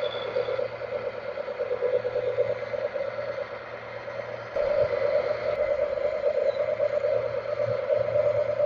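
Milling machine cutting a slot with an end mill: a steady cutting tone over the hum of the machine, getting louder about halfway through.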